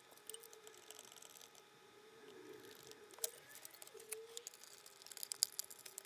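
Light clicks, taps and rattles of small plastic parts and screws being handled while a projector is put back together, with a sharper click a little after three seconds and a quick run of clicks near the end.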